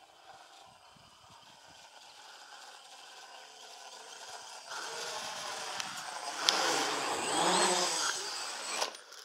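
RC quadcopter's electric motors and propellers whirring, growing steadily louder as it flies in close, then cutting off abruptly near the end as the quad comes down in the grass.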